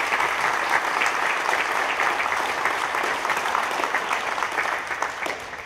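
Crowd applauding, many hands clapping at once in a dense, even patter that dies away near the end.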